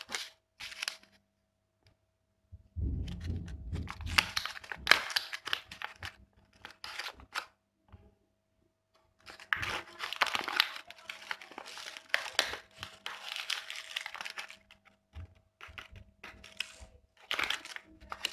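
Small plastic bag crinkling and rustling as it is handled and pulled open, in several spells with short pauses between, and a dull handling thump near the start of the first spell.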